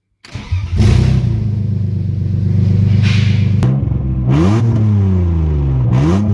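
BMW M52B28 2.8-litre inline-six starting: it cranks briefly and catches within the first second, then runs at a steady high idle. It is blipped twice, once about four seconds in and again near the end, with the revs rising and falling back each time. The owner finds the engine healthy: it starts and revs cleanly.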